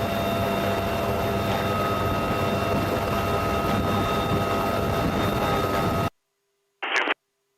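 Helicopter turbine engines running, a steady cabin noise with a high whine over a low hum, picked up through the crew's open intercom mic; it cuts off abruptly about six seconds in as the mic drops out.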